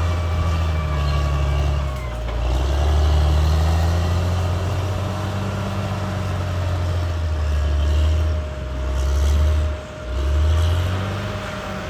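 Caterpillar D6R XL bulldozer's diesel engine working under varying load, its note rising and falling, with brief drops in level about two seconds in and near the end.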